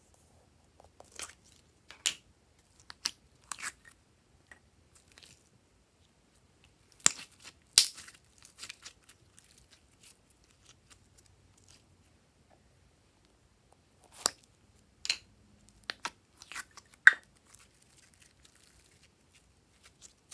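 Glossy slime being worked by hand, giving sharp sticky clicks and crackling pops in three short clusters with quiet gaps between them.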